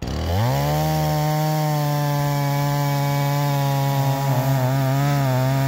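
50cc Husqvarna 445 two-stroke chainsaw with a ripping chain, mounted in an Alaskan mill, revving up quickly to full throttle and then running steadily at high speed as it rips lengthwise through a log, its pitch wavering slightly under load from about four seconds in.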